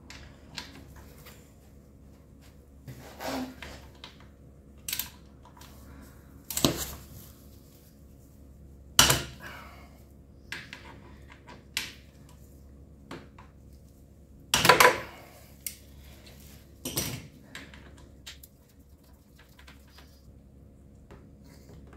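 Steel socket, extension and wrench clinking and clicking together in hand as they are put together and set on a motorcycle engine's oil drain plug. About a dozen separate sharp clinks, the loudest about nine and fifteen seconds in.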